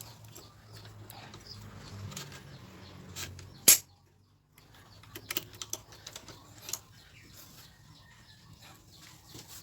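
Irregular light clicks and knocks, with one sharp, loud click a little under four seconds in and a brief near-silent gap just after it.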